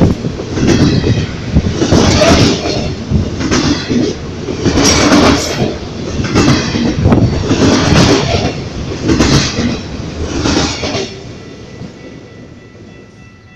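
Freight train cars rolling past, their wheels clacking over rail joints in loud bursts about every second and a half, then fading away after about eleven seconds.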